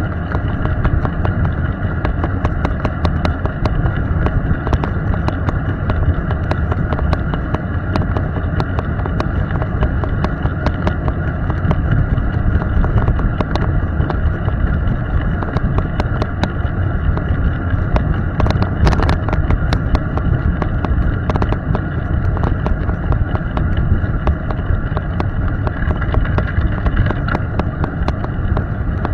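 Steady road noise of a vehicle driving at speed on a wet road: tyre and wind rumble with a constant light crackle.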